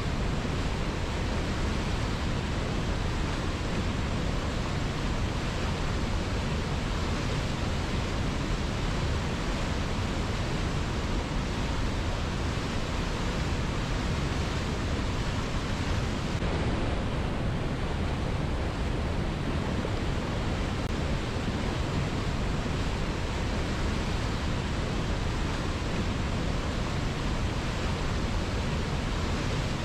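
Strong river current rushing steadily: a dense, even wash of flowing water with no breaks.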